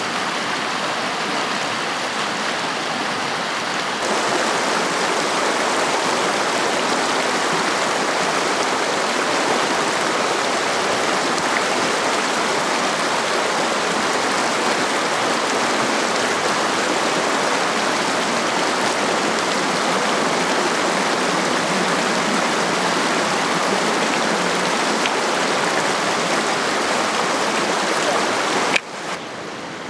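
Mountain stream rushing over rocks, a steady hiss of moving water. It gets louder about four seconds in, and near the end a click is followed by a sudden drop to a quieter flow.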